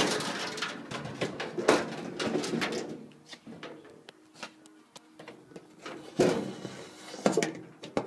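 Hard plastic access panel of a microwave being handled and fitted against its casing: scattered clicks, knocks and scrapes, busiest at first, with two louder knocks about six and seven seconds in.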